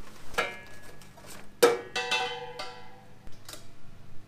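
Two metallic clanks about a second apart, each ringing on briefly, followed by a few lighter knocks, as the metal barbecue and its gas cylinder are handled.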